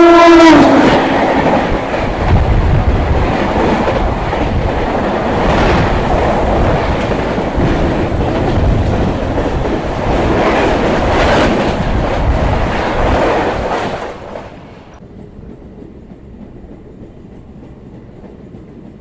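An oncoming electric locomotive's horn ends with a drop in pitch as the engine passes. Its express coaches then rush by close alongside with loud wheel rattle and clatter for about fourteen seconds. When the last coach clears, the sound falls abruptly to the quieter steady running of the local train.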